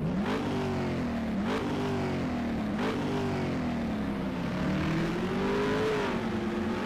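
A motor vehicle's engine revving. It sweeps up at the start, jumps sharply in pitch twice, about one and a half and three seconds in, then swells and eases off slowly.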